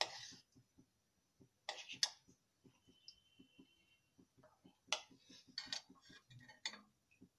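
A steel spoon scraping and clinking against an aluminium kadhai as a lump of desi ghee is stirred while it melts, in short bursts at the start, about two seconds in and around five to six seconds in. A faint, fast, even ticking runs underneath.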